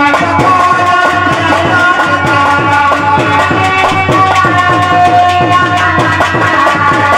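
Instrumental Indian folk music: a harmonium holding steady notes over a fast dholak rhythm, the drum's bass strokes sliding down in pitch.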